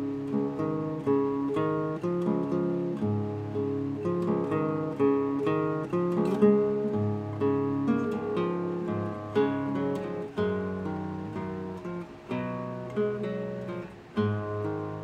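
Nylon-string classical guitar played solo and fingerpicked: a slow melody over plucked bass notes, each note ringing and dying away.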